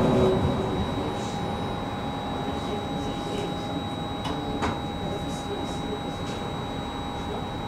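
Inside a tram standing still: a steady electrical hum with a thin high whine over a low rumble. A brief squeal is heard right at the start as it comes to rest, and two faint clicks follow about four and a half seconds in.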